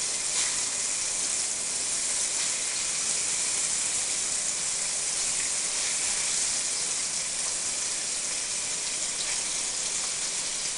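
Diced raw chicken breast sizzling steadily in hot oil and butter in a cast iron pan as the pieces are added by hand.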